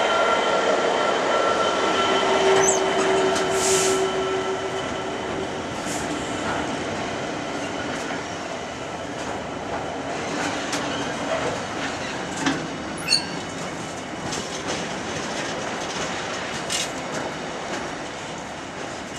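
A Freightliner Class 66 diesel locomotive passes close by, hauling an intermodal container train, followed by the wagons rolling past: a steady rumble of wheels on rail, loudest at first, with a high thin wheel squeal in the first few seconds. Sharp knocks and clicks from the wagon wheels over rail joints come through as the sound slowly fades.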